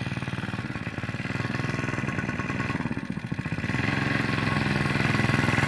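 A 5 hp mini bike's small single-cylinder engine running steadily as it is ridden. It eases off briefly about three seconds in, then gets louder from about four seconds as the bike comes nearer.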